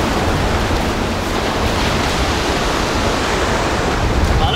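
Surf breaking and washing up the sand in a steady rush.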